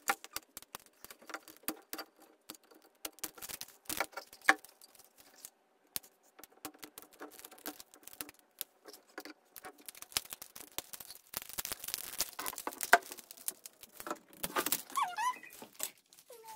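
Handling noise from opening a metal Poké Ball tin: many small clicks, taps and knocks, with a longer stretch of dense rustling about two-thirds of the way through.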